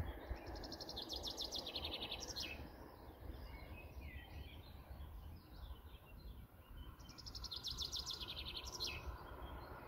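A songbird singing twice, each phrase about two seconds of rapid repeated notes falling in steps and ending in a quick flourish, with softer scattered chirps between the phrases. A low steady rumble runs beneath.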